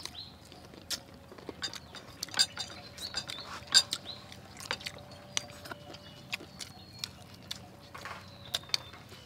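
People eating fried chicken pieces held in their hands: scattered sharp clicks of chewing and lip smacking, irregular and of varying loudness, the loudest a little under four seconds in.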